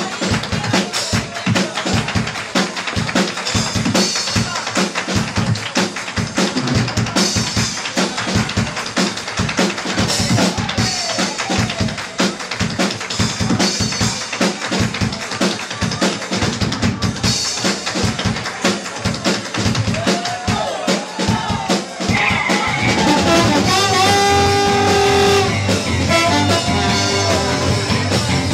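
Live 1960s-style band music with the drum kit to the fore, played busily with fast snare strokes and rolls. About three-quarters of the way through, the full band comes in with held horn notes from a trombone.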